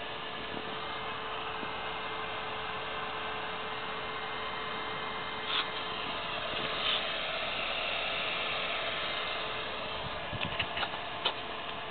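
Blower fan of an Auber temperature controller running steadily with a hum, feeding air to the smoker's fire while the temperature climbs. A few light clicks near the end.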